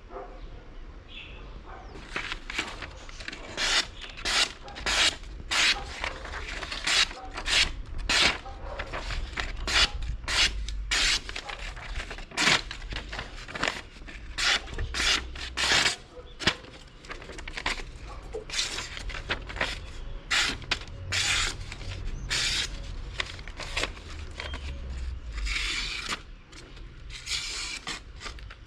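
Repeated hand strokes of an abrasive or file scraping over metal, irregular, roughly one to two strokes a second, starting about two seconds in.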